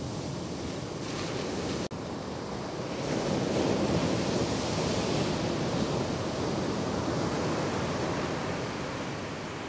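Surf breaking and washing ashore, a steady rushing wash with wind buffeting the microphone. It cuts out for an instant about two seconds in, then swells louder a second later.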